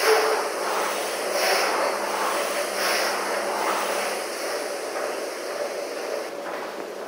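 Air-resistance rowing machine in use: its fan flywheel whooshes with each stroke, about one surge every second and a half, over a steady hum.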